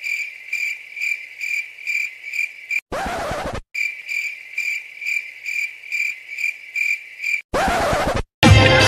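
Cricket chirping sound effect: a steady high chirp pulsing about three times a second, the stock comic cue for an awkward silence. It breaks off twice for a short burst of rushing noise, about three seconds in and near the end.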